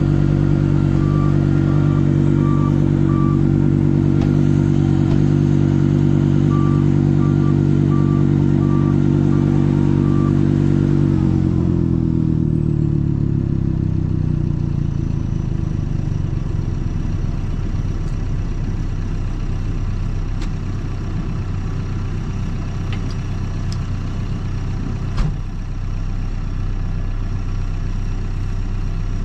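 Trackless MT6 tractor engine running steadily at high revs while it blows snow. About eleven seconds in, the revs fall away and it settles into a lower, rougher running. Two runs of short high beeps sound in the first half, and there is a single knock near the end.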